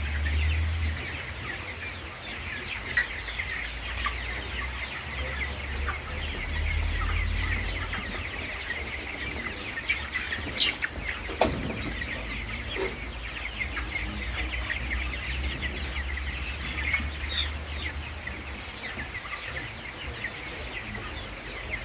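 A large flock of four-week-old broiler chickens calling continuously, a dense mass of short high peeps and chirps, with one louder call falling in pitch about halfway through. A low rumble comes and goes underneath.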